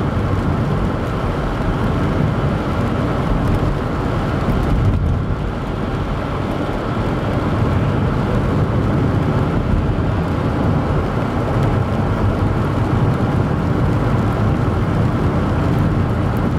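Steady road noise inside a moving car: a low rumble of engine and tyres on wet pavement, even throughout.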